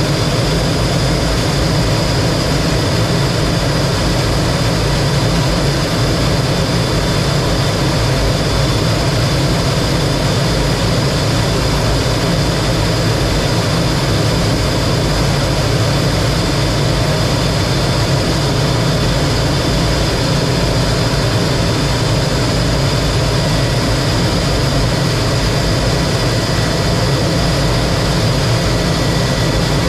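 Lockheed T-33 jet trainer's single turbojet engine and rushing air, steady and unchanging, heard from inside the cockpit, with a thin high whine held over a deep rumble.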